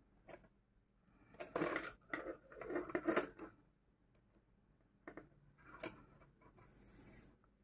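Hand-sewing a crocheted bag onto a metal purse frame: a needle and yarn worked through the frame's holes, with light metallic clinks and rustling of the crocheted fabric. The sounds come in a cluster of short bursts about one and a half to three and a half seconds in, then a few single clicks.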